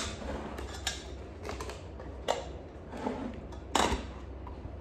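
A Tefal pressure cooker being handled: several short metal clinks and knocks from the pot and its parts, the loudest near the end.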